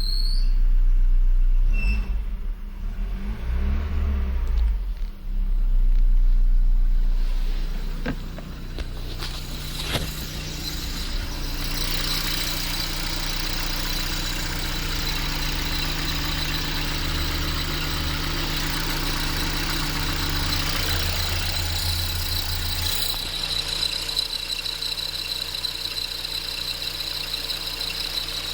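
A Ford Fiesta's engine is revved for the first several seconds, then drops back to idle. From about ten seconds in a steady high whine comes up over the idle. The whine comes from the alternator and drive belt, which the owner puts down to a bad battery making the charging voltage run high; the noise eases while the engine is revved.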